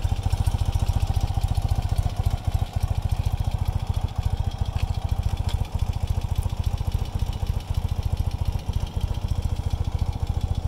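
1976 BMW R60/6's 600 cc air-cooled flat-twin engine idling steadily with its idle set low, giving an even train of exhaust pulses.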